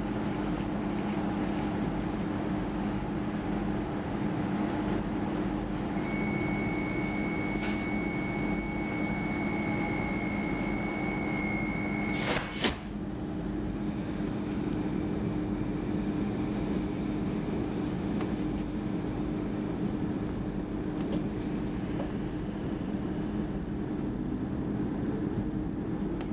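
Interior running noise of an X10 electric commuter train in motion: a steady rumble with a constant low hum. About six seconds in, a steady high beep sets in, lasts about six seconds and ends at a sharp click, after which the train noise carries on.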